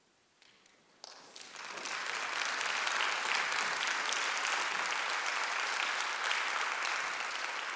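Audience applause: near silence at first, then clapping breaks out about a second in and quickly builds to steady applause.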